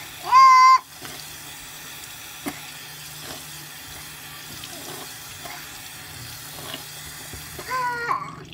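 Water running steadily from a tap. A short high-pitched vocal cry comes just after the start and another near the end.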